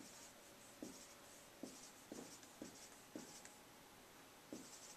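Dry-erase marker tapping dots onto a whiteboard: a run of faint, short taps, about one every half second, with a longer gap before the last tap near the end.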